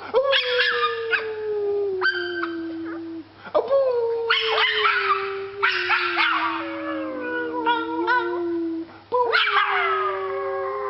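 A dog howling: three long howls, each starting higher and slowly falling in pitch, with short higher yelps at the start of each.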